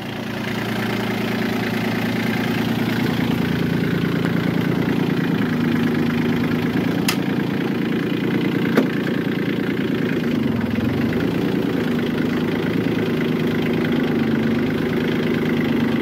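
Tractor engine running, coming up in speed in the first second and changing pitch a couple of times as it works, as it does when the tractor's front bucket pushes over a tree. Two short sharp clicks come through partway in.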